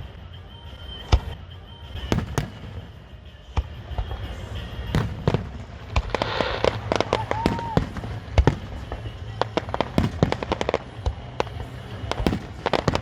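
Fireworks going off: irregular sharp bangs and cracks of shell bursts, coming thicker and faster from about halfway through.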